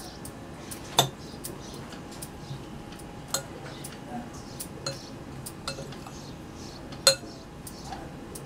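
A metal spoon stirring chopped coriander leaves and ground spices in a glass bowl, clinking irregularly against the glass, with two sharper knocks, about a second in and near the end.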